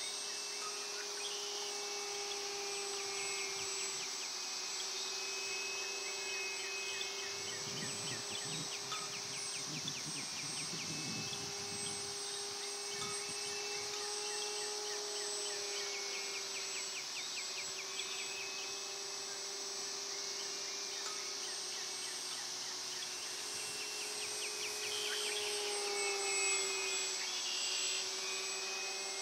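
Steady high-pitched chorus of insects chirping and buzzing over a field. Under it runs the faint, even hum of a distant RC plane's motor and propeller, its pitch wavering slightly as it flies.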